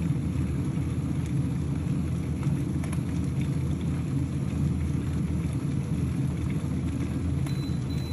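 AEG Gourmet 7 electric kettle heating water, making a steady, loud low rumble with a few faint ticks. This is the heating noise the owner finds incredibly noisy for a kettle.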